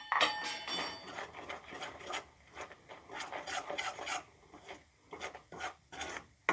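A spoon scraping across the bottom of a pan in repeated uneven strokes, stirring thick cooking candy mixture of sugar and spice powders.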